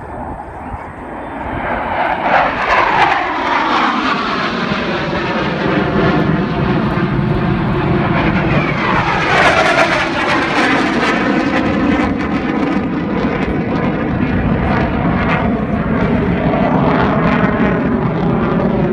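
F-16 fighter jets in formation flying past, their engine roar building over the first few seconds and then staying loud. Sweeping shifts in pitch come as the jets pass, about two seconds in and again about nine seconds in.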